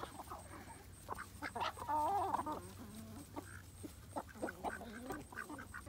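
A flock of chickens clucking while they feed, many short overlapping calls, with one louder warbling call about two seconds in.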